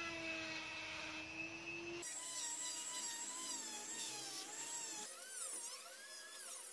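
Small handheld rotary tool whining at high speed while a burr carves into a wooden disc. The whine holds steady at first, then wavers and swoops up and down in pitch as the bit bites into the wood.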